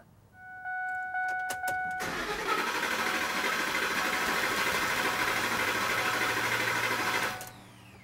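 A steady electronic beep for about a second and a half, then a Ford F150's 5.4-litre Triton V8 cranked over by its starter for about five seconds without starting, stopping suddenly near the end. This is a cranking compression test, and the compression hits are even across the cylinders.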